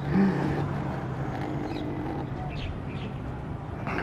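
Steady low hum of a running motor over outdoor background noise, with a few faint high chirps partway through.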